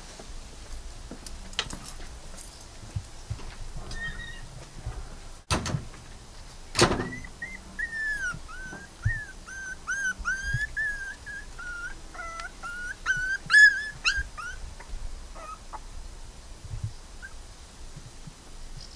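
A puppy whining: a run of high, wavering whimpers lasting about seven seconds, starting a little over a third of the way in. Two sharp knocks come shortly before it.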